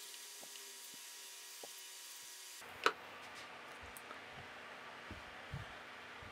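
Faint room hiss with soft handling noises from a leather holster being brushed with a wet finish and turned in the hand. One sharp click about three seconds in, where the background hiss also changes abruptly, and a few soft low thumps later on.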